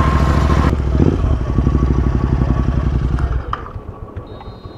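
Motorcycle engine running steadily at idle, then dropping away about three and a half seconds in.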